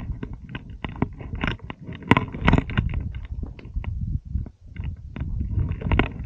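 Footsteps crunching and scraping on loose stones and gravel down a steep rocky slope, with many irregular clicks of small stones knocking together, over a low rumble on the microphone.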